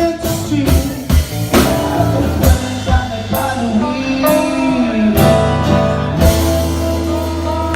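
A live band playing a reggae song with drum kit, bass, guitar and singing. About five seconds in, the drum strikes drop away and a chord is held.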